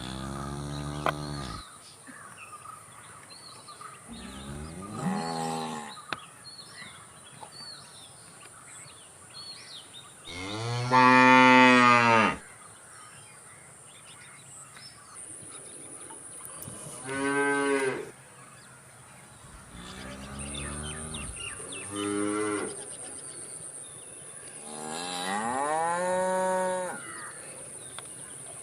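Cattle mooing again and again: about seven separate moos, each one to two seconds long, the longest and loudest about ten seconds in.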